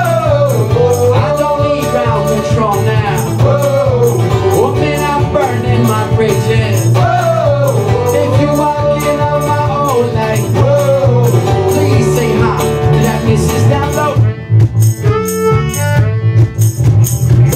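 Live acoustic band music: acoustic guitar, electric bass and cajon with a shaker-like percussion beat, under a sung melody. The sound thins briefly about fourteen seconds in, then the band plays on.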